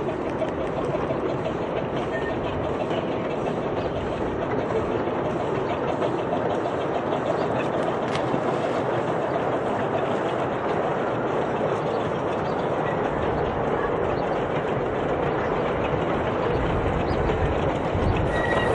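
Miniature steam railway train running along the track with a steady rattle and rapid clicking, growing louder near the end.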